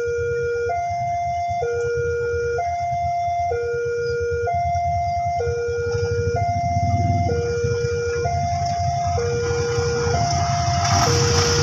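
Railway warning alarm giving a two-tone electronic signal, a low note and a higher note alternating about every 0.8 seconds, as a train approaches. Near the end, a rising rush of noise from the oncoming train led by a CC 204 diesel locomotive grows louder.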